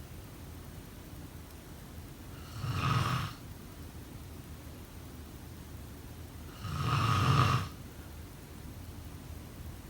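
A person snoring: two snores about four seconds apart, the second longer and louder, over a steady faint hiss.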